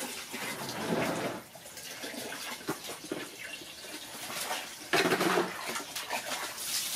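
Water running from a garden hose into a plastic bucket, with louder splashing about a second in and again about five seconds in as a baby monkey is dipped and paddles in the water.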